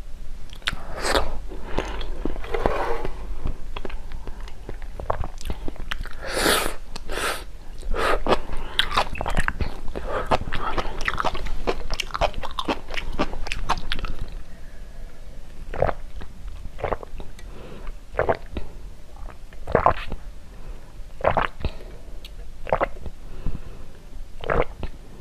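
Close-up mouth sounds: biting and chewing a soft pink topping piece with wet, crunchy clicks, then sipping a drink through a plastic straw, with a sharp gulp about once a second in the second half.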